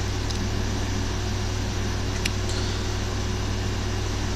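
Steady low mechanical hum with an even hiss, like a fan or air-conditioning unit running. Two faint sharp clicks stand out, one near the start and one about halfway through.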